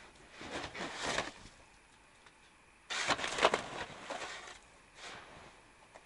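Snow shovel scraping and pushing through deep snow: a shorter stroke within the first second or so, then a louder one that starts suddenly about three seconds in.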